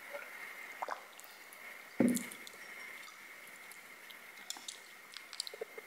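Close-miked wet mouth sounds of a person drinking and eating: small smacks and clicks, with one louder thud about two seconds in.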